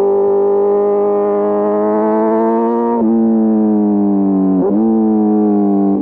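Inline-four motorcycle engine pulling, its pitch climbing steadily, then dropping sharply about three seconds in as the revs fall with a gear change. A second brief dip and recovery in pitch comes near the end.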